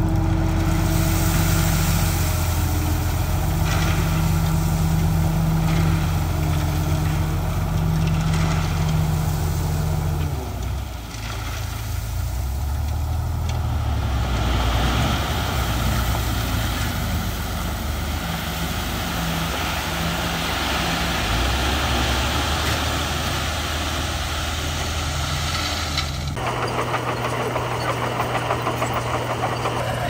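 Heavy dump truck's diesel engine running as its hydraulic bed tips and a load of gravel slides out with a steady rushing hiss. Near the end it cuts abruptly to a different engine, a crawler bulldozer working.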